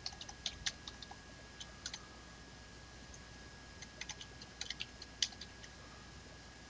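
Computer keyboard typing: two short runs of keystrokes, the second starting about four seconds in, as numbers are entered into form fields. A faint steady high-pitched tone runs underneath.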